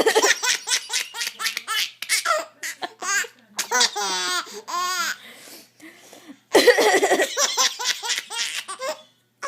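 Baby laughing hard in repeated fits of rapid laugh pulses, set off by its mother's coughs. There is a long wavering squeal about four to five seconds in, a brief pause, then a second loud fit about six and a half seconds in.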